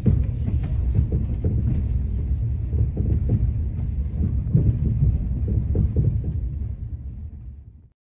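Passenger train heard from inside the carriage while under way: a steady low rumble with irregular knocks of the wheels over the rails, fading out near the end.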